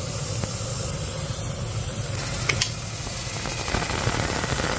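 Steady rushing air from a Bambu Lab Smoke Purifier fume extractor, with the sizzling hiss of a 60 W fiber MOPA laser engraving slate. There is one short sharp sound about two and a half seconds in, and the hiss gets louder near the end.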